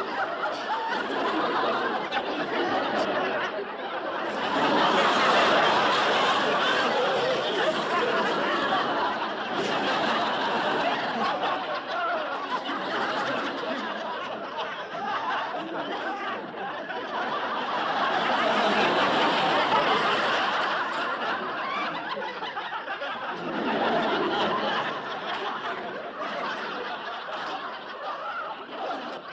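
A crowd laughing, many voices at once, swelling and subsiding in waves several times.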